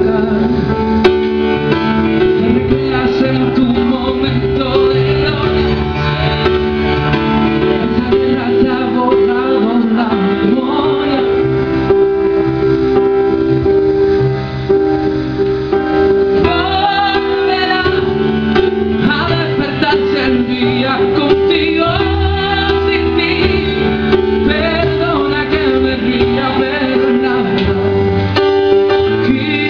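Male singer singing a slow pop ballad into a microphone while accompanying himself on piano, performed live through a PA.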